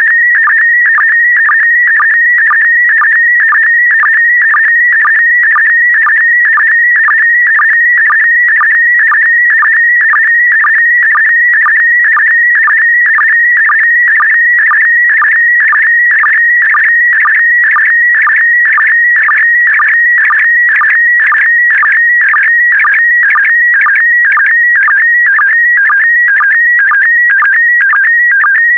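Slow-scan TV signal in PD120 mode sending picture data: a continuous electronic warbling tone that shifts pitch with the brightness of the picture, broken by a short dip for the sync pulse about twice a second.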